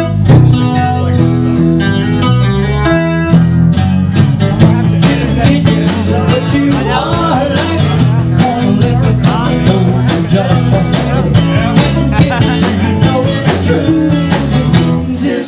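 Live band playing a song on electric and acoustic guitars and a drum kit, with a steady drum beat under the guitars.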